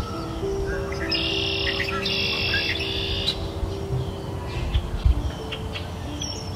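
Birds chirping in short bursts of trills over soft background music with long held notes.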